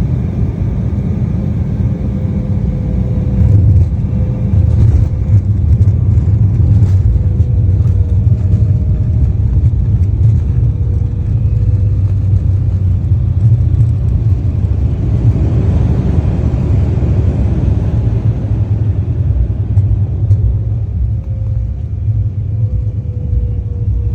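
Jet airliner landing: a steady, loud, low rumble of engines and rushing air with a faint engine tone that wavers slightly. It grows louder a few seconds in, and a broader rushing noise swells and fades again about two-thirds of the way through.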